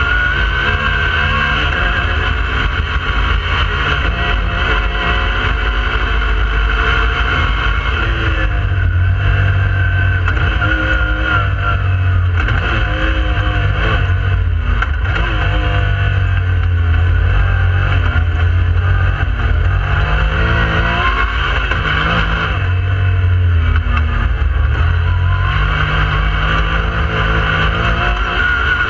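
Yamaha YXZ1000R side-by-side's three-cylinder engine running under way, its pitch rising and falling again and again as the throttle is opened and eased off through the middle stretch.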